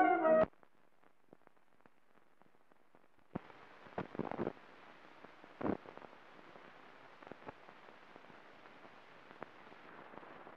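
A brass fanfare cuts off just after the start. Then the faint crackle of an old optical film soundtrack follows: a few scattered clicks, then from about three seconds in a steady hiss dotted with sharp pops, the loudest of them a few seconds in.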